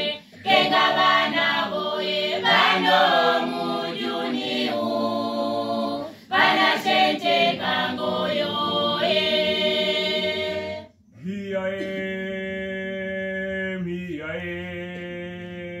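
Youth choir singing a cappella in harmony. The phrases break off briefly about six seconds in and again about eleven seconds in, after which the choir holds long steady chords.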